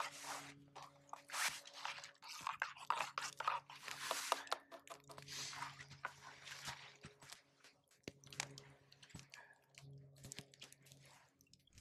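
Irregular crunching and rustling up close, of snow and clothing as someone moves beside a burning campfire, with short sharp crackles among them.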